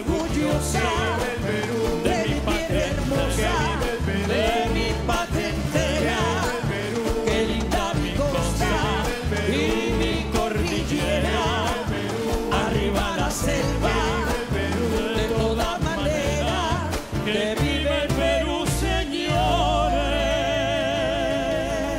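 An operatic tenor and a female singer singing together over an orchestra and band, in long ornamented lines with wide vibrato; near the end a long note is held with strong vibrato.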